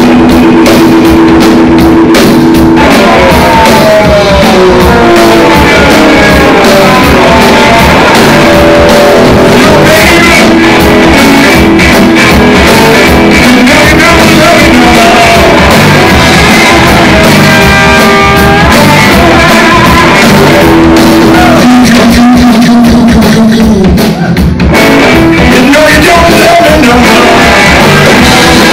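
A band playing rock music live, with a singer over guitars; the recording is very loud throughout.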